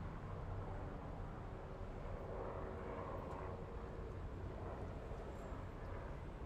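City highway traffic: a steady low rumble of engines and tyres on the road, with the tyre noise of a passing vehicle swelling and fading around the middle.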